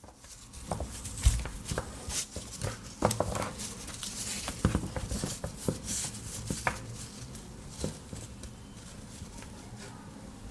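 A USB cable and its plastic packaging being handled and unpacked: scattered light clicks and rustling.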